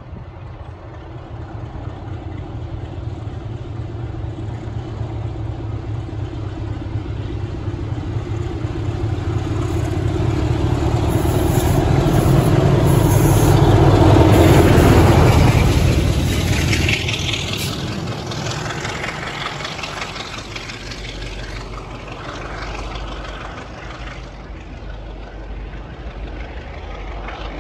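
Class 33 diesel-electric locomotive, its Sulzer eight-cylinder engine opened up to full power as it pulls a train away. The engine note builds steadily and is loudest as the locomotive passes, about halfway through, then falls in pitch and fades as it draws away.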